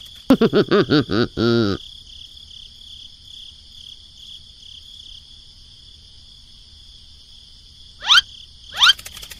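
A high-pitched, sped-up cartoon voice jabbering for about a second and a half, then a steady chirring of crickets, with two quick rising squeaks near the end.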